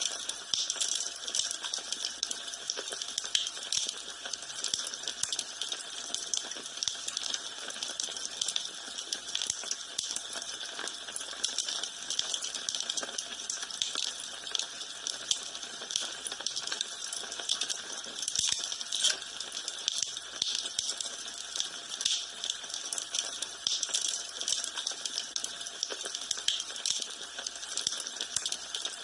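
Wood fire in a fireplace crackling steadily, with dense small pops and snaps over a soft hiss.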